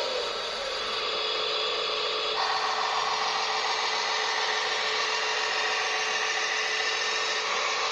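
Small electric motors and plastic gearboxes of a remote-controlled construction model whirring steadily. The whir gets louder and higher about two and a half seconds in.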